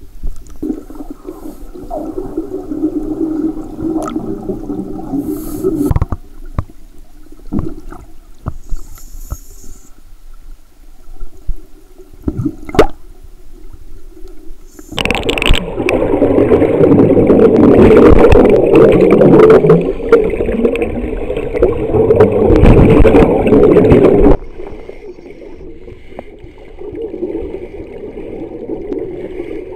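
Underwater sound of a scuba diver's exhaled air bubbling out of the regulator in long bursts, with scattered clicks and knocks between them. The loudest burst, about halfway through, cuts off suddenly.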